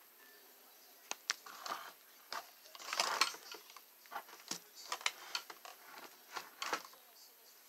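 Irregular clicks, taps and rustles of an action figure's cardboard box and packaging being handled, with a louder burst of handling about three seconds in.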